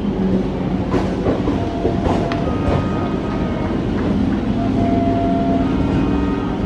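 Indian Railways WDM-3A diesel locomotive approaching at speed, its engine drone growing slightly louder, with a few sharp clicks of wheels over rail joints.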